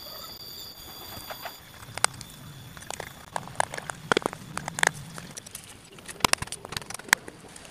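Hand chisel cutting into wood, giving a run of sharp, irregular clicks and taps as chips are pried and split off.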